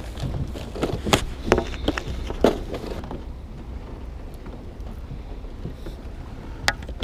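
Clicks and knocks from a plastic tackle box being opened and lures handled in it: several in the first three seconds, then one more click near the end. A low steady rumble runs underneath.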